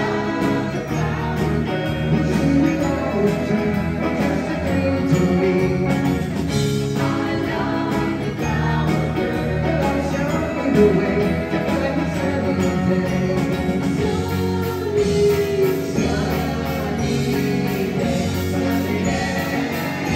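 Live pop-rock band playing, with several voices singing together over electric and acoustic guitars, bass and drums.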